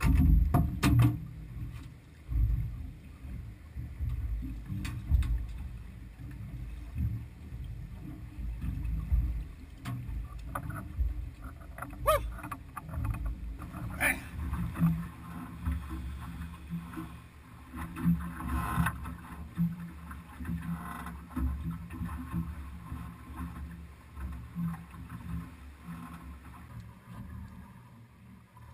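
Wind buffeting the microphone and water slapping against a small boat's hull, a gusting low rumble, with a few sharp knocks and clicks from gear on the boat.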